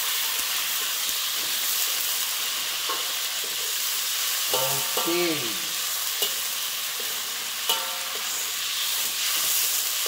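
Beef slices, garlic and onion sizzling in hot oil in a wok as they are stir-fried, with a steady hiss. A metal spatula scrapes and clinks sharply against the wok a few times, the last clink ringing briefly.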